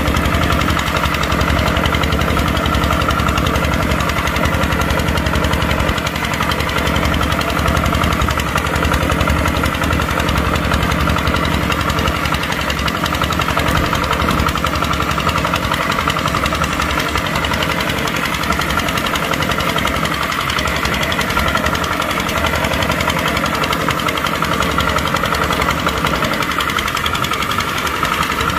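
Kubota tractor's diesel engine running steadily at a constant speed.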